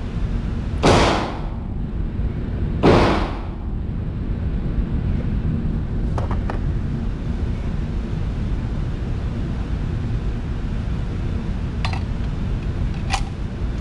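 Two gunshots on an indoor range, about two seconds apart, each with a short echoing tail, over a steady low rumble. A few light clicks of gear being handled follow later.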